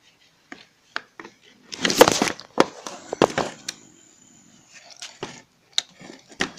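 Hard plastic parts of an RC car being handled and fitted: irregular clicks and knocks, with a loud cluster of rattling about two seconds in and a few scattered knocks after it.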